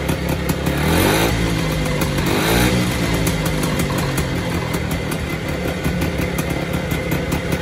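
Vintage Isomoto two-stroke motorcycle engine idling, revved up briefly twice, about a second in and again about two and a half seconds in, then settling back to a steady idle.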